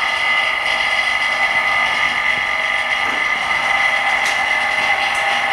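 Small motor-driven repair tool running with a steady high-pitched whine, one constant tone throughout.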